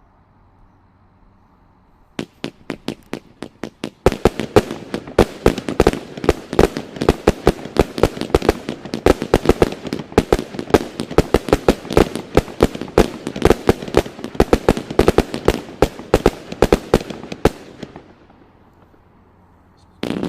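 Nishiki Finale consumer 1.4G finale cake firing. About two seconds in come a few spaced shots; from about four seconds a rapid barrage of sharp reports follows, several a second, then stops a few seconds before the end.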